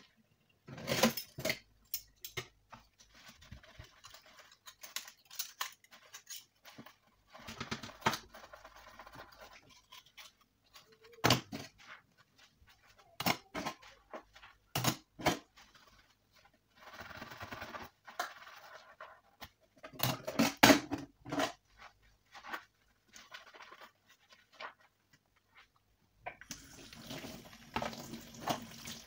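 Metal cutlery clinking and knocking against a stainless steel sink as spoons and knives are scrubbed by hand, with a few short spells of splashing water. Near the end the tap is turned on and runs steadily.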